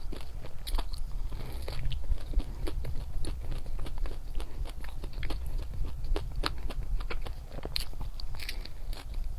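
Close-up eating of chocolate: irregular crisp crunches and clicks of biting and chewing follow one another without a break, over a steady low hum.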